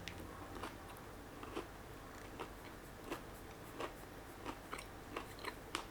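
Close-up chewing of a crunchy-coated mochi donut (Pon De Ring Golden Strawberry), with soft crunches about every three-quarters of a second. The crunch comes from its golden coating.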